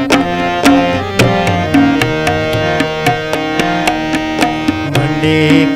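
Instrumental interlude of a Himachali folk song: tabla playing a steady rhythm of sharp strokes under a melody of held notes on an accompanying instrument.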